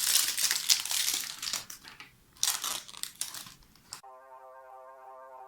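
Plastic packaging crinkling and rustling as it is handled. It cuts off suddenly about four seconds in, and a faint held musical tone follows.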